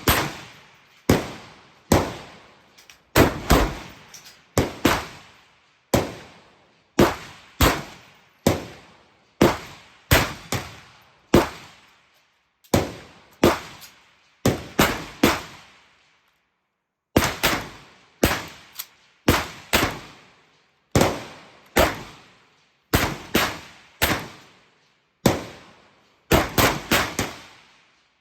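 Rifle shots from several shooters on a firing line during a timed string. The shots come at uneven intervals, one to three a second and sometimes in quick pairs or clusters, each with an echoing tail, with a short lull about halfway through.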